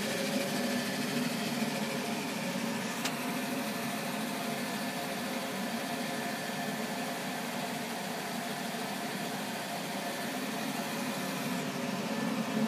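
Stenz Feeder 400 feeder running: a steady whirring hum from its vacuum blower and belt drive, with a single light click about three seconds in.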